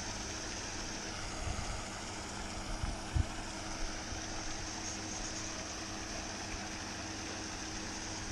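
Surface aerator in a trout lake running steadily: a motor hum with water churning and splashing. A few short low knocks sound between about one and a half and four seconds in.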